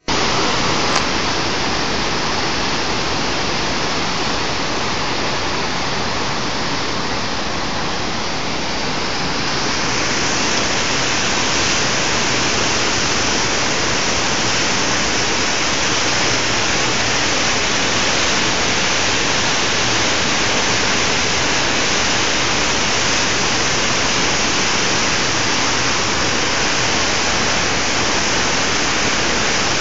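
A mountain river in flood, its fast, muddy water rushing over its bed in a loud, steady noise. The rush grows a little louder and hissier about ten seconds in.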